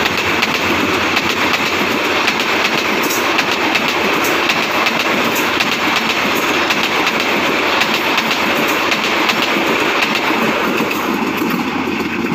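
Bangladesh Railway passenger coaches going past at speed without stopping, a steady rumble with the wheels clacking over the rail joints. The sound starts to ease near the end as the last coach passes.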